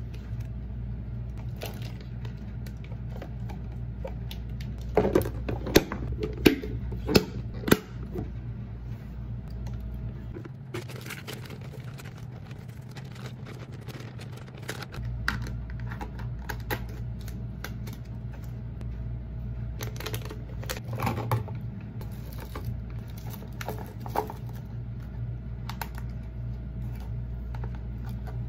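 Hands handling plastic food containers and packaging while frozen diced vegetables are tipped from a plastic bag into a plastic tub: a quick run of sharp clicks and clatters about five to eight seconds in, then lighter scattered ticks and rustles, over a steady low hum.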